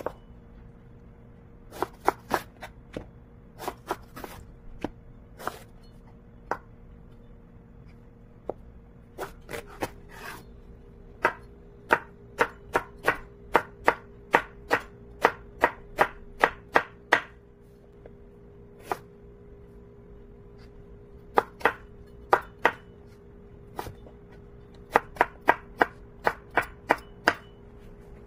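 Kitchen knife dicing eggplant on a wooden cutting board: sharp knocks of the blade against the board in uneven runs. The fastest run comes midway, at about three chops a second, with short pauses between runs.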